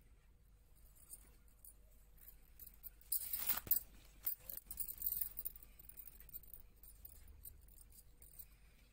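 Handling sounds of hands at work with a crochet hook and a pearl bead on a yarn cord: a short rustle about three seconds in, then scattered light clinks and ticks, with glass bangles on the wrists clinking along.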